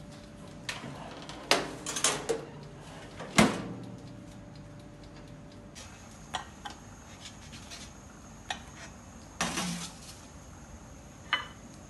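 Kitchen handling clatter: a run of sharp clicks and knocks around the toaster oven, the loudest a little over three seconds in, then lighter taps and a short clatter as bread slices are set down on a plate.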